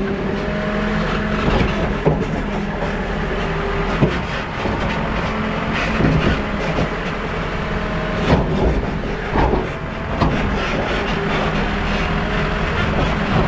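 New Holland backhoe loader's diesel engine running steadily while working, with a whine that comes and goes and several sharp knocks of the bucket working through clay and stones.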